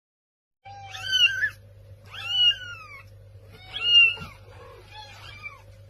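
A cat meowing: three loud, high, drawn-out meows, each rising then falling in pitch, then a fainter one. A steady low hum runs underneath.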